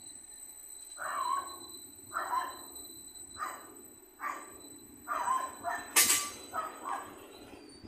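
A dog barks about eight times at uneven intervals over the steady hum of a Greater Anglia class 755 train drawing into the platform. A sharp click about six seconds in is the loudest single sound.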